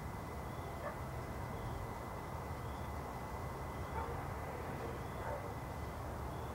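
Distant city traffic hum heard from a hillside at night: a steady low rumble. A faint high chirp repeats about once a second over it.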